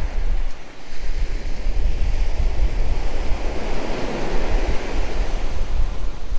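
Wind gusting on the microphone, a heavy fluttering rumble, over the steady wash of surf breaking on the beach.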